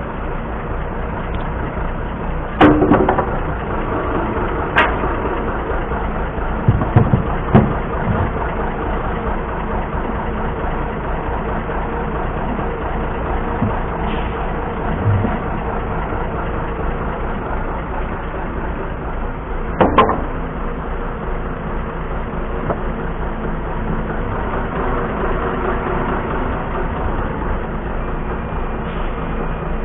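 Heavy diesel engine running steadily, with a few sharp knocks: two early on, a cluster a few seconds later, and one more about two-thirds of the way through.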